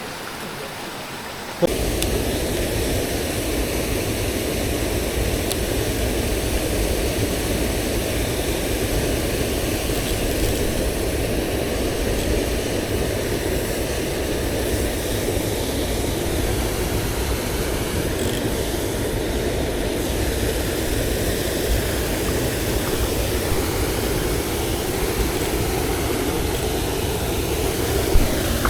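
Mountain stream water rushing over rocks, a loud steady roar that comes in abruptly about two seconds in and holds unchanged.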